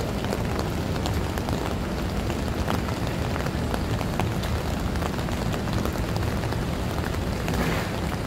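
Rain falling steadily on wet street paving: a dense, even hiss flecked with the patter of single drops, over a low rumble.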